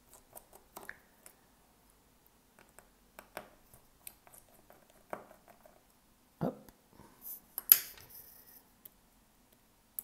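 Scattered soft clicks and taps of a small Phillips screwdriver and fingers working the screws and parts of an opened iPhone 12 mini, with a sharper click about three quarters of the way through.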